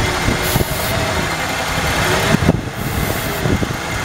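Ford 4.9L inline-six idling unevenly while starting fluid is sprayed in short hisses at the gasket between the throttle body and the intake plenum. The idle changes as the ether is drawn in through the leaking gasket: a vacuum leak behind the engine's lean, loping idle.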